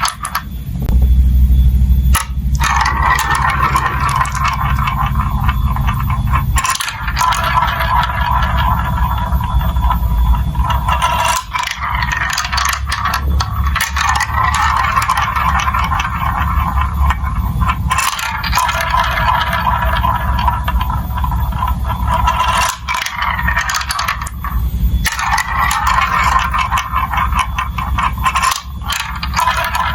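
Marbles rolling through a plastic building-block marble run: a steady rolling rumble with a ringing tone from the track, broken by clicks and rattles.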